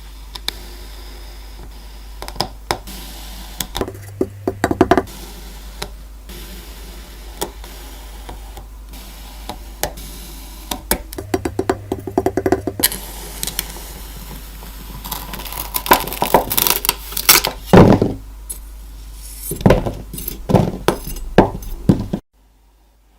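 Kinetic sand being cut and crumbled: crisp crunching and crackling in quick clusters over a steady low hum, growing denser and louder toward the end, then cutting off abruptly about a second before the end.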